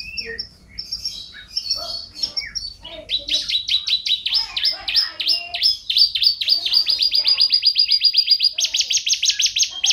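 Domestic canary singing: a few seconds of varied chirped notes, then from about three seconds in a long, fast trill of rapidly repeated notes, switching near the end to a higher, faster trill.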